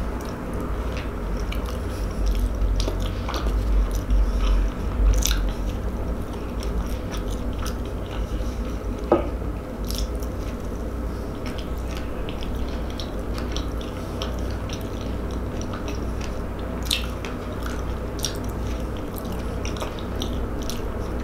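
A person biting into and chewing a sauce-dipped White Castle slider. Soft wet mouth clicks and smacks are scattered through the chewing, over a low steady hum.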